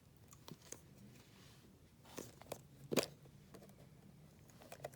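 Faint, scattered crinkles and clicks of a blind-box package being handled and opened, with the sharpest click about three seconds in.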